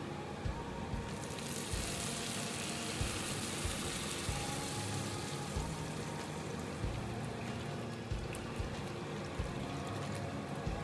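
Water poured from a plastic bottle into a hot wok of sautéed anchovies: a hissing sizzle starts about a second in, is loudest for a few seconds, then eases into the sound of the pour. Soft background music with a light beat runs underneath.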